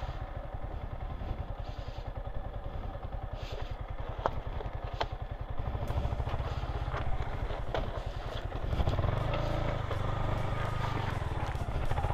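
Yamaha MT-15 motorcycle engine running steadily, kept idling while the bike is worked through mud, with a few sharp clicks over it. About nine seconds in, the engine gets louder.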